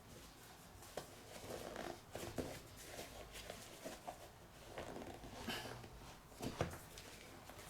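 Quiet handling of sneakers and their packaging: scattered rustles, soft taps and clicks, with a sharper click near the end.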